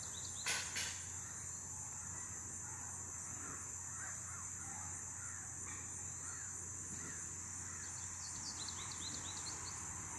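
Outdoor ambience: a crow caws twice, about half a second in, against a steady high-pitched insect drone, with small birds chirping briefly near the end.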